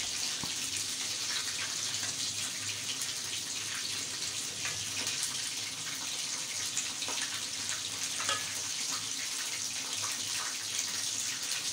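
A steady hiss throughout, with a few faint clinks of a steel ladle against the pot and plate as fish curry is served.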